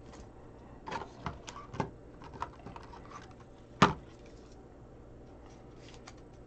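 A trading card in a soft plastic sleeve and a rigid plastic top loader being handled: scattered light clicks and taps, with one sharp click a little before four seconds in.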